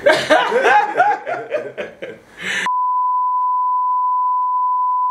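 Laughter, cut off abruptly about two and a half seconds in by a steady, unwavering test-tone beep of the kind played over colour bars.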